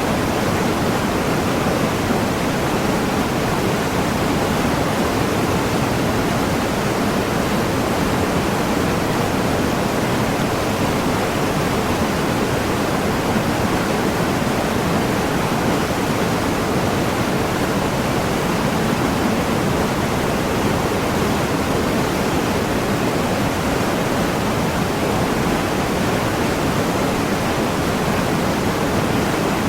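Waterfall: water falling and splashing into a pool, a steady unbroken rush.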